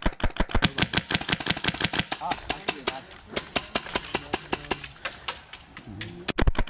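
Airsoft gunfire: rapid, sharp shots, several a second, with two louder shots close together near the end.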